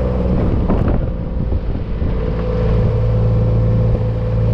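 Vehicle engine running steadily while driving, its low drone growing stronger about two and a half seconds in.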